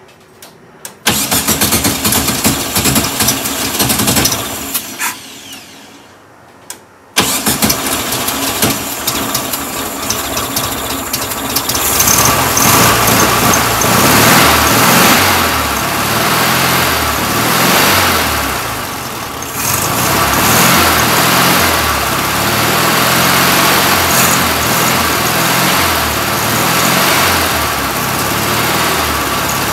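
1967 VW Karmann Ghia's air-cooled flat-four engine being started. A first attempt about a second in fades away within a few seconds; a second attempt about seven seconds in catches, and the engine keeps running unevenly, its speed rising and falling. The fuel pump is not delivering fuel, which the owner gives as the reason it won't stay running.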